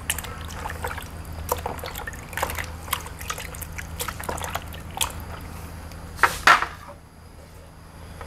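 Water splashing and sloshing as hands squeeze and rub raw chicken breasts in a plastic basin of water, washing them. There are two louder splashes about six and a half seconds in, then it goes quieter.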